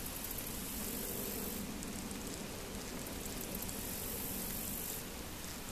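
Steady outdoor background hiss with no distinct event.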